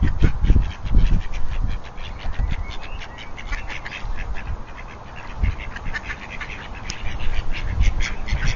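Mallard ducks quacking in many short, repeated calls, over low rumbling thumps on the microphone near the start and again near the end.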